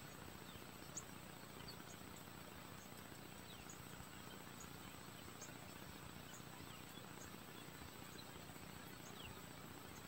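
Faint outdoor ambience: a steady thin high whine with light ticks about once a second, and a few faint, short falling chirps.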